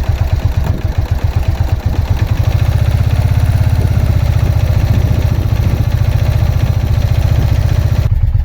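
1989 Suzuki VX800 V-twin motorcycle engine running at idle, its exhaust beat getting louder about two seconds in. The rear cylinder is misfiring.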